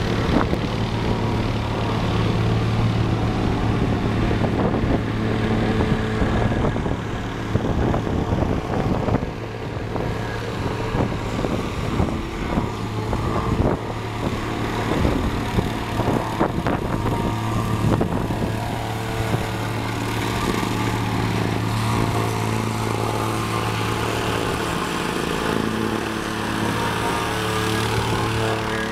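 Engine of heavy asphalt-paving machinery running steadily. Irregular clattering and scraping comes in from about six seconds in and fades out after about eighteen seconds.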